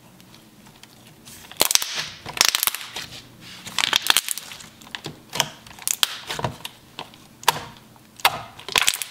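Glossy, creamy slime being pressed and kneaded by hand, popping and clicking as trapped air bubbles burst. The pops come in quick clusters, starting about a second and a half in and recurring every second or two.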